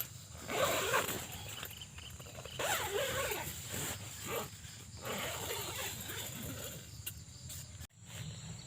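Tent door zipper being pulled open in several uneven strokes, with the tent fabric rustling.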